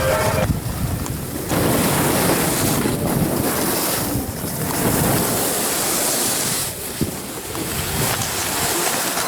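Wind buffeting the microphone, a loud rushing noise that swells and eases in gusts.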